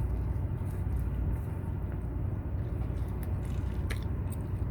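Chewing a mouthful of a spicy egg McMuffin, with a few small sharp mouth clicks near the end, over a steady low rumble.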